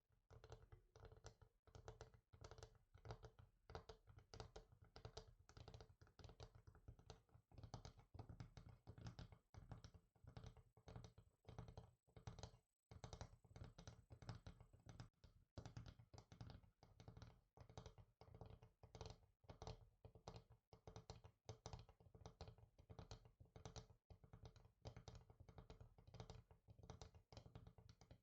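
Fingers tapping quickly and lightly on a surface, several taps a second in a busy, uneven patter, with a brief pause about twelve seconds in.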